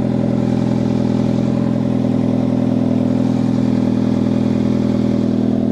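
2005 Hyundai Tucson 2.0L inline-four engine idling steadily, with the newly replaced alternator charging at about 14 volts.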